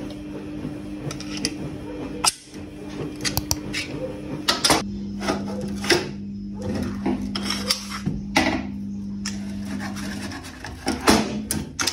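Metal parts of a Chinese underlever air rifle clicking, clinking and scraping as they are handled and the gas-ram piston is worked out of the compression tube. A steady low hum runs underneath and stops near the end.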